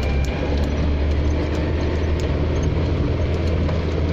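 4x4 off-road vehicle driving on a dirt track: a steady low engine drone under a rough rumble, with a few small clicks and rattles.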